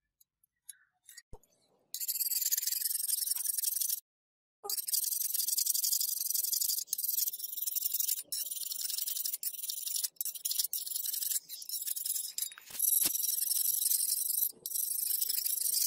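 Steel file rasping across a meat cleaver's steel blade in repeated strokes. It begins about two seconds in as a high, hissy scrape, with short breaks between strokes. A few light clicks come before it.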